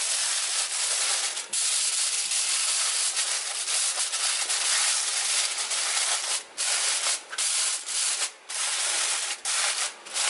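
Aluminium foil crinkling and rustling as it is folded and crimped by hand into a parcel, with several short pauses, more of them in the second half.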